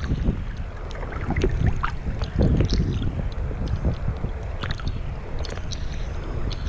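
Small waves lapping and sloshing against a waterproof GoPro held at the waterline, with a steady low rumble of water and wind on the housing and scattered small splashes and ticks.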